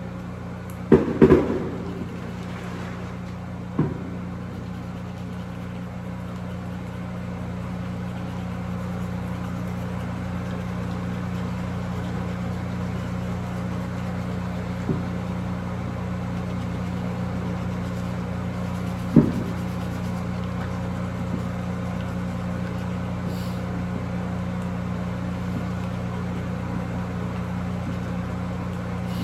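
Steady low mechanical hum with a few fixed low tones, broken by short knocks near the start, about four seconds in and again near the middle.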